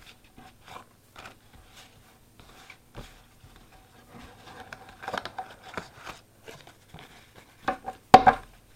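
Trading cards and packaging handled by hand: soft scattered rustles and light clicks, busier midway, with one louder knock near the end.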